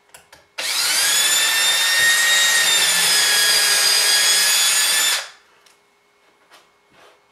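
Cordless drill boring a hole through drywall into a wooden 2x12 framed in behind it: the motor spins up about half a second in, runs at a steady whine for about four and a half seconds, then stops. A few faint clicks follow.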